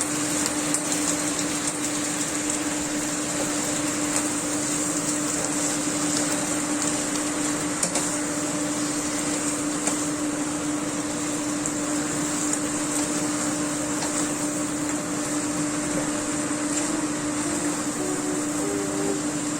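A small electric motor running steadily: a constant whirring hum with a high hiss, unchanged throughout.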